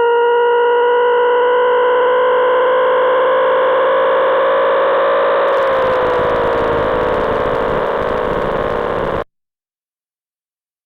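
Loud synthesized tone from the Desmos graphing calculator, a buzzy pitch with a stack of overtones. About five and a half seconds in it turns harsh and noisy and its pitch sags slightly. It cuts off suddenly a little after nine seconds.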